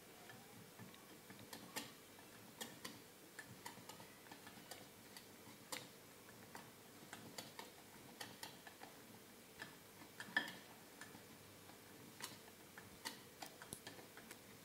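Wire whisk stirring cake batter in a glass bowl, the metal clicking lightly and irregularly against the glass, a few times a second.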